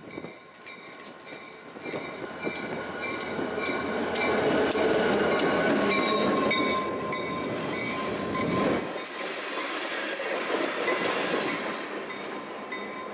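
An EMD GP40 diesel locomotive and three loaded tank cars passing close by. The engine rumble and the wheels clicking over the rail joints build to their loudest about halfway through, and the deep rumble drops away a little later as the train moves off. Steady high ringing tones run under it.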